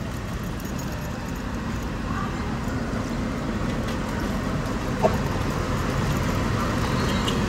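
Steady low rumble of road traffic and vehicles, growing slightly louder partway through, with a faint click about five seconds in.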